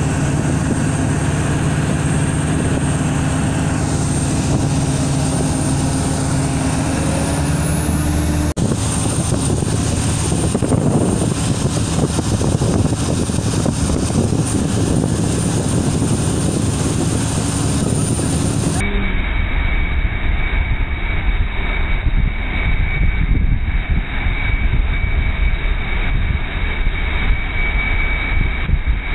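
Tow boat's engine running steadily at speed as it pulls a parasail, a constant loud drone. The sound changes abruptly about eight seconds in and again near nineteen seconds, becoming duller and heavier in the low end.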